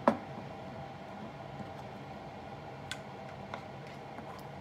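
A ceramic coffee mug knocking sharply once as it is taken off a Keurig coffee maker's drip tray, with a brief ring that falls in pitch, followed by a couple of faint clicks over a steady low hum.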